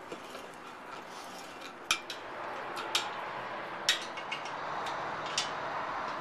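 Combination wrench clinking on a steel bolt and bracket as nuts are turned down on a rocking chair's steel frame: about five sharp metallic clinks, roughly a second apart, over a steady low background noise.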